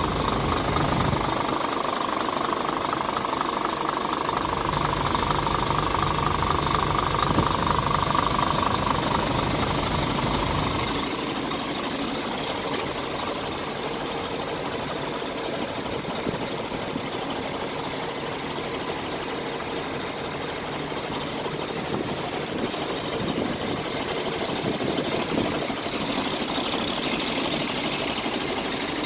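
Scania R450 tractor unit's 13-litre straight-six diesel idling steadily, louder for the first ten seconds or so, then a little quieter.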